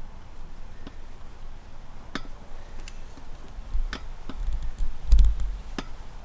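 Scattered light clicks and knocks of a motorcycle tire and inner tube being worked by hand on a spoked rim while the valve stem is pushed through the rim hole, with dull low thuds around four to five seconds in.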